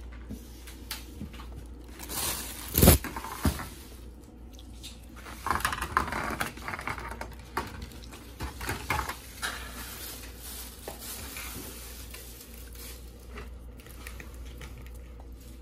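Clear plastic takeout clamshell containers being handled and moved on a table, giving scattered crinkles and clicks. The loudest is a sharp crack about three seconds in, and there is a longer stretch of crinkling a few seconds later.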